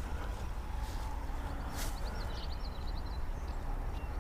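Steady low wind rumble on the microphone, with a couple of soft clicks and, about two seconds in, a short run of quick high bird chirps.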